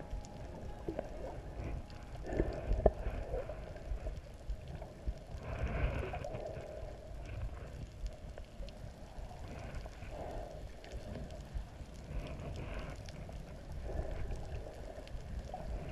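Muffled underwater water noise picked up by a camera held below the surface: a steady low rumble with a few louder swooshes of moving water, and one sharp knock about three seconds in.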